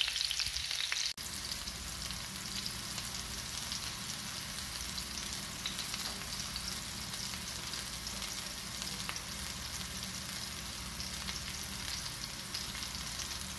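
Chicken meatballs shallow-frying in a little olive oil in a frying pan: a steady sizzle with many fine crackles.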